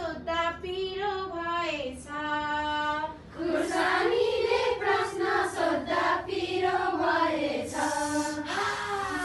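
A woman singing a Nepali children's rhyme alone, ending on a held note, then a group of women singing it together from about three seconds in.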